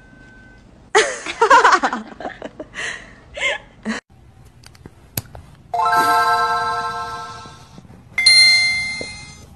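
Two bell-like chimes, one about six seconds in and one about eight seconds in, each struck once and fading away. Earlier, about a second in, there is a short wavering voice-like call.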